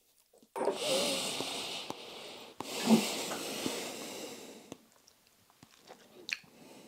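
Two long, airy breaths, about two seconds each, back to back, from a taster working a sip of whisky over the palate.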